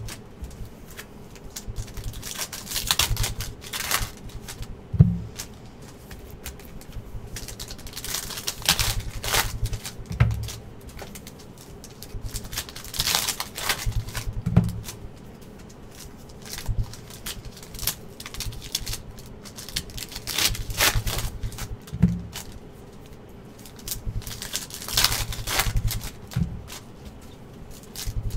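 Trading card packs and cards being handled on a table: spells of crinkly wrapper rustling and card shuffling, with several soft thumps in between.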